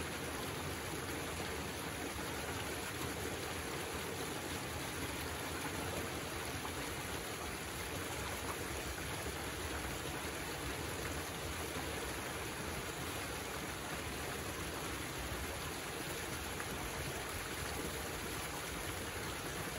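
Pond water draining out through a dug trench, running and splashing steadily past the backhoe bucket as the pond empties.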